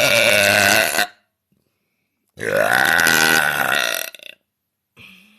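A woman's deliberate, loud burps. A long one ends about a second in, and a second one lasts nearly two seconds. A short faint sound follows near the end.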